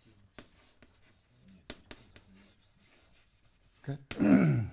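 Chalk writing on a chalkboard: faint, scattered taps and scratches of chalk as a short phrase is written. Near the end comes a brief, much louder sound with a falling pitch.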